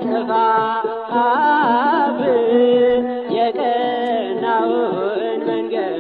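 Ethiopian Orthodox mezmur: a male singer sings a sustained, heavily ornamented Amharic hymn melody with wavering, bending notes over a steady drum beat.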